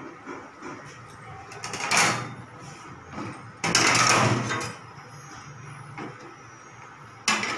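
Metal blade scraping and sliding on a plastic cutting board while sponge cake is cut. One scrape swells about two seconds in, a louder one starts suddenly near the middle and lasts about a second, and another starts suddenly near the end.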